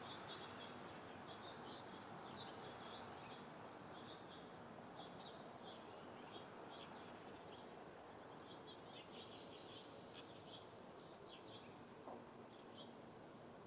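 Faint high chirps of small songbirds in quick clusters, thickest about nine seconds in, over a steady background hiss of outdoor noise.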